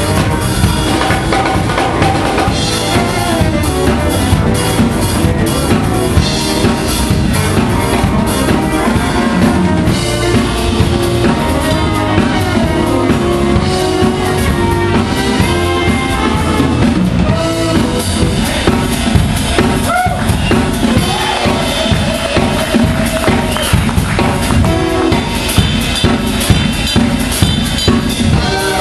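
A live band playing: a Pearl drum kit is played busily, with snare, bass drum and cymbal hits, under keyboards and a saxophone.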